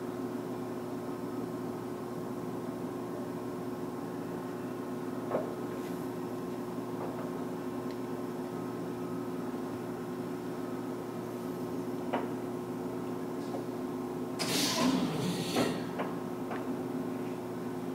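Steady hum of a Mazak Oil Country hollow-spindle engine lathe's drive, with a few single clicks. About three-quarters through comes a short burst of clunks and rattles as the headstock's speed-change levers are shifted.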